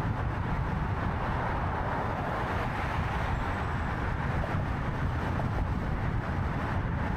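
Steady road noise of a moving car: a low rumble with tyre and engine noise over it, even throughout.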